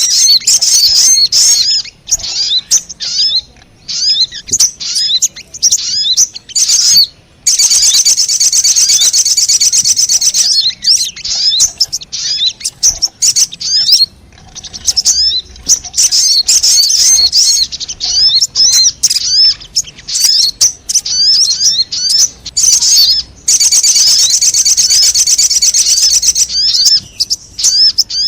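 Sogon (little spiderhunter) lure calls: a rapid series of high, sharp chips, broken twice by about three seconds of dense, continuous chattering.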